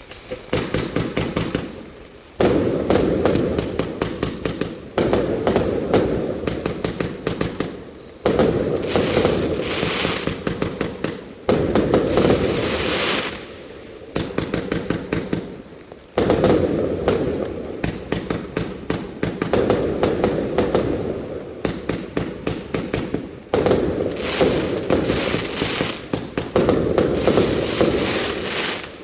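A 288-shot fireworks cake firing in rapid volleys of shots, each run lasting a few seconds, with short gaps between runs and a longer pause about halfway.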